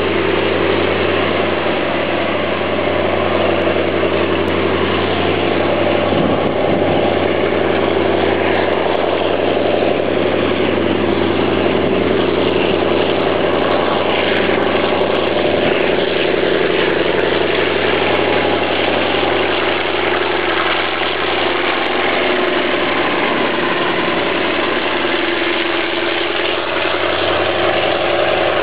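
Diesel locomotive engine running steadily at a constant pitch.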